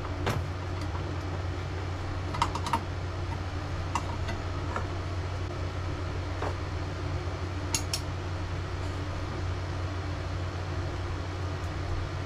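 Scattered light clicks and taps of hands and small tools handling something, a few at a time and irregular, over a steady low hum.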